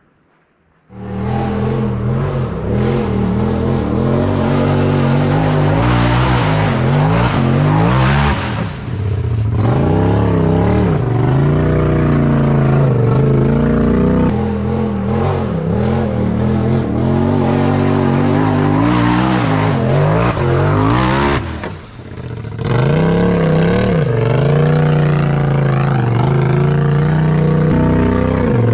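A side-by-side UTV's engine running loud under heavy throttle, its pitch rising and falling again and again as the gas is worked. It cuts in suddenly about a second in and drops briefly about nine and twenty-two seconds in.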